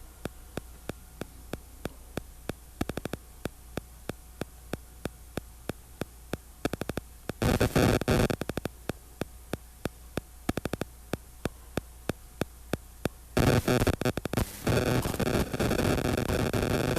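Electronic static: a steady low hum with sharp clicks a few times a second, and loud bursts of hiss about seven seconds in and again from about thirteen seconds on.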